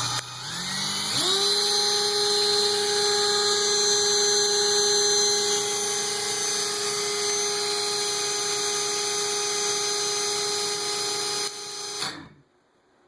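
Electric drill spinning up from the trigger pull and running at a steady high speed, a constant motor whine, as it winds ice-fishing line off the reel onto a spool. It stops suddenly about twelve seconds in.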